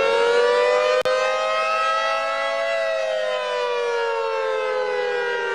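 Warning siren sounding during a tornado warning: one long wail that keeps climbing in pitch to a peak about two and a half seconds in, then slowly sinks, with a brief cut in the sound about a second in.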